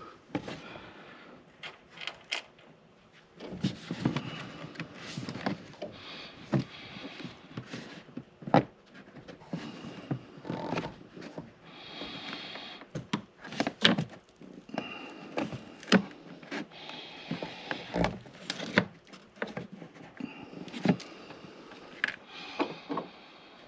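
Brittle old plastic cowl trim under a car's windshield being pulled and worked loose by hand: irregular clicks, snaps and creaks, with scraping and rustling of plastic.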